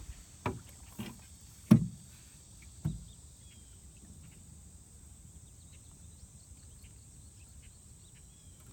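Four hollow knocks on a small aluminium boat, the third much the loudest, about two seconds in. Then a quiet background with faint insect chirping.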